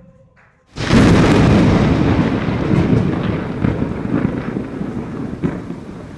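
Thunderstorm noise: a loud rush of wind and rain with rumbling. It starts suddenly about a second in and slowly eases.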